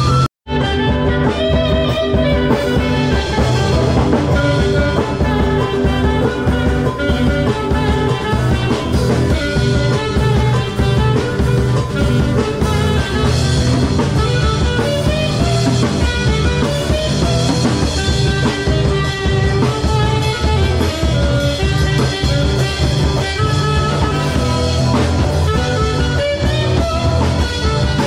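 Music with guitar and drums playing steadily, broken by a brief drop to silence just after the start.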